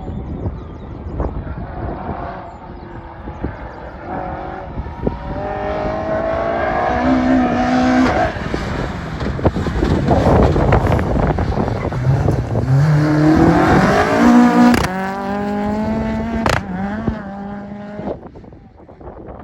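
Renault Clio 172 rally car's 2.0-litre four-cylinder engine revving hard and climbing in pitch through the gears, growing louder as the car approaches and fading away near the end. Two sharp cracks sound close to the loudest part.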